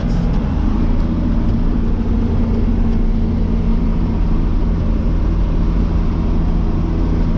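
Tractor engine running steadily under load, heard from inside the cab, a constant low drone.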